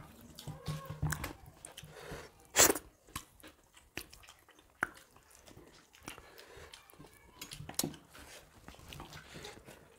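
Two people eating rice and curry by hand from steel plates: chewing, lip smacks and fingers working the food on the plates, with scattered sharp clicks, the loudest about two and a half seconds in and another near the end.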